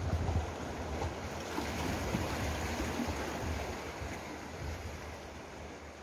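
Sea surf washing against a rocky shore and concrete tetrapod breakwater, a steady rushing wash that swells in the first few seconds and eases toward the end, over a low rumble of wind buffeting the microphone.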